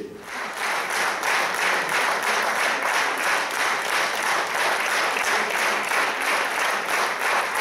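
A theatre audience applauding, a steady round of clapping.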